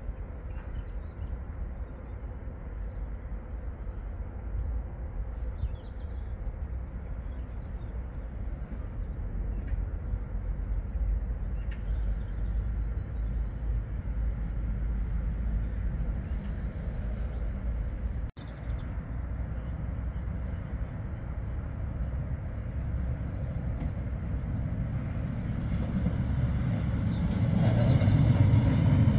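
Steady low outdoor rumble with birds chirping faintly, then an electric CAF Urbos tram running into the stop, its rumble growing louder over the last few seconds.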